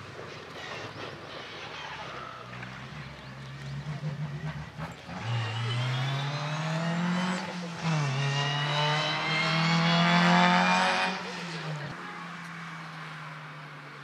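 Rally car engine at full throttle as the car passes: the note climbs through one gear, drops briefly at an upshift about halfway through, climbs again to its loudest, then falls away as the car goes by. A few sharp cracks come as it approaches.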